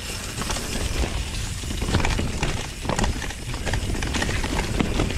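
A mountain bike clattering down a rough dirt trail: irregular knocks and rattles from the bike as its wheels go over roots and rocks, over a steady low rumble of tyres and rushing air. The sharpest knocks come about two and three seconds in.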